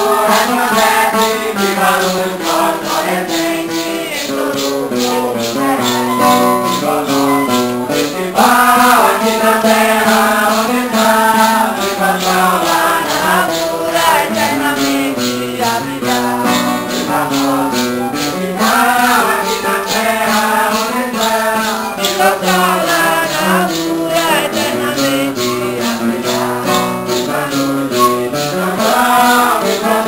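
Santo Daime hymn: voices singing together over strummed guitar, with maracas shaken in a steady, even beat.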